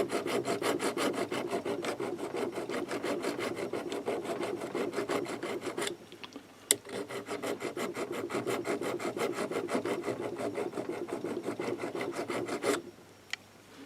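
Small hand file rasping along the metal edge of a model locomotive chassis in rapid, even back-and-forth strokes. The filing stops about six seconds in, with a sharp click, then starts again and stops about a second before the end.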